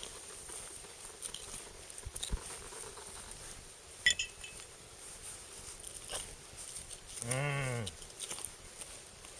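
Faint clicks and scrapes of a knife cutting deer meat, then a short low call about seven and a half seconds in whose pitch rises and falls.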